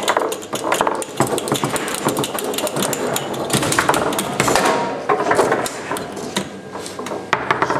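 Tecball foosball table in fast play: rapid, irregular knocking and rattling of the steel rods and plastic players as the ball is struck and passed.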